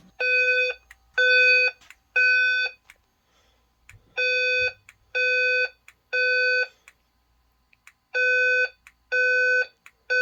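Fire alarm speaker strobes sounding a Simplex-style evacuation tone in the three-pulse temporal pattern. Each steady, buzzy beep lasts about half a second, three beeps to a group, with a pause between groups. Three full groups are heard, and a fourth begins near the end.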